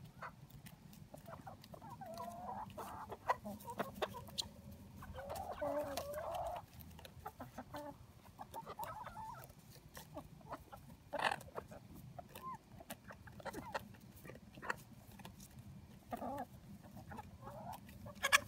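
Seven-month-old chickens clucking and making curving, trilling calls while pecking at a head of cauliflower. Many short, sharp taps run through the calls, the loudest a little past the middle.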